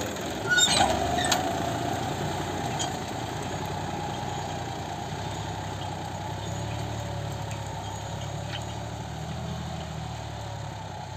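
John Deere 5210 tractor's three-cylinder diesel engine running steadily under load as it pulls a tine cultivator through the soil, slowly fading as it moves away. A couple of sharp knocks sound about a second in.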